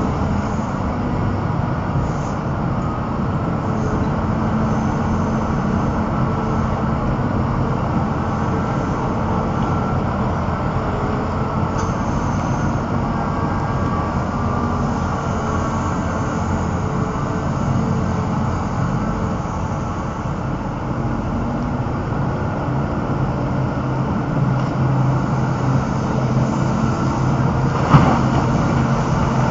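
Diesel engines of a Caterpillar 6040 mining excavator running steadily, a continuous low drone. A single sharp knock sounds near the end.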